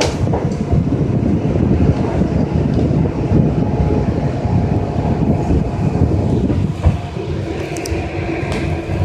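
Gwangju Metro train running on open-air track, heard from inside the front car: a steady running rumble of wheels and undercarriage, with a steady hum joining about seven seconds in.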